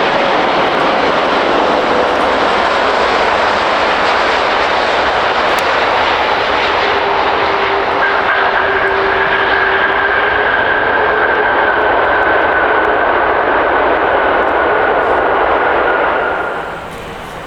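Jet airliner passing close, a loud steady engine roar with high whining tones, which drops away sharply near the end.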